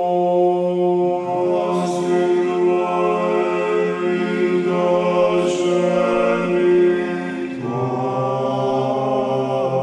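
Background music of sung chant: slow, long-held notes in several voices over a steady low drone, the harmony shifting to a lower bass note about seven and a half seconds in.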